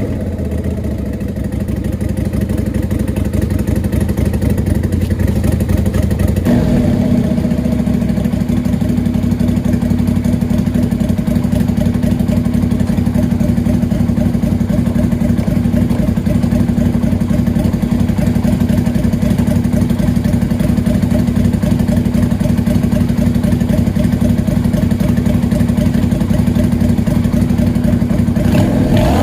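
Lifan V16 LF250-H motorcycle's V-twin engine running steadily at idle through an aftermarket curved horseshoe exhaust. It settles to a slightly higher, steadier note about six seconds in.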